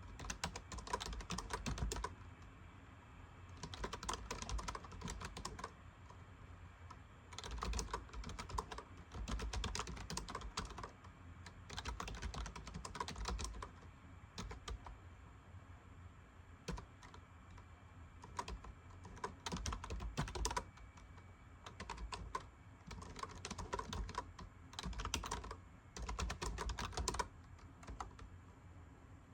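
Typing on a computer keyboard in runs of rapid key clicks a second or two long, with short pauses between the runs.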